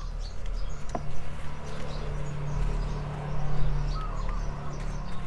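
A small plastic plant pot is scooped through a soil mix of cow manure and tamarind bark in a large plastic tub, rustling and scraping, with a sharp knock about a second in. Birds chirp in the background.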